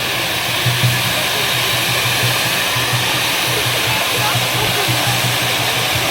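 Steady loud hiss of hand-held fountain fireworks spraying sparks, with a low hum that pulses on and off underneath.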